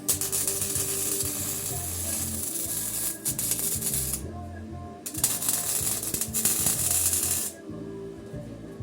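Electric welding arc crackling and hissing in two runs, about four seconds and then about two and a half seconds, with a short break between: tack welds on the steel frame.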